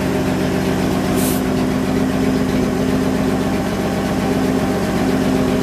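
The 1961 UNI's engine idling steadily with no muffler fitted, an open, unmuffled exhaust note. There is a brief high hiss about a second in.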